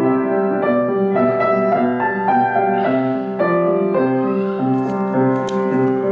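Upright piano playing a simple sacred piece from sheet music: a melody over sustained chords and held low notes, flowing steadily.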